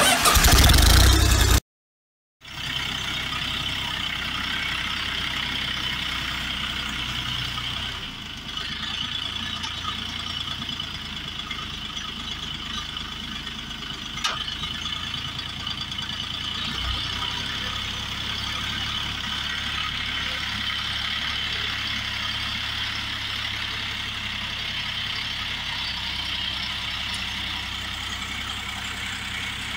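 A short, loud intro sound, a brief silence, then a Xingtai 244 New mini-tractor's engine running steadily as the tractor is driven onto loading ramps, with a single sharp click about halfway through.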